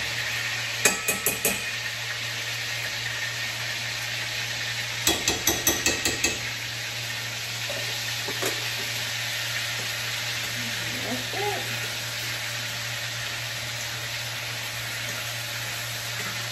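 Steak sizzling in butter in a frying pan, a steady hiss. Utensils click against the pan a few times about a second in, then tap it in a quick run of about seven between five and six seconds in.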